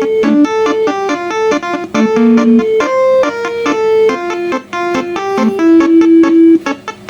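A 12-note telolet bus horn set playing a fast melody from a MIDI file. Mostly short, clipped notes, with a few held longer and some sounding together, blasted by the horn trumpets under an Arduino-based MIDI controller.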